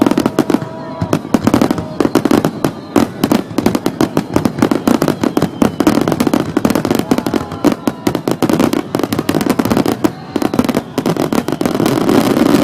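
Fireworks finale: a rapid, unbroken barrage of aerial shell bursts, several bangs a second over a constant rumble, heaviest near the end. The booms come through a compact digital camera's microphone, which makes the blasts sound odd.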